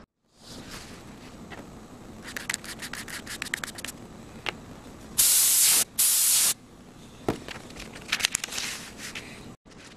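Rapid scratching and rubbing of a drawing tool on paper, in two runs. Between them come two loud hissing bursts of about half a second each, one just after the other.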